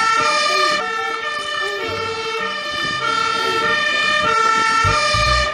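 Fire engine's siren, stepping between pitches about once a second.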